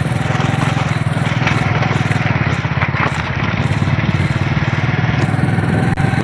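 A small engine running steadily with a rapid, even putter.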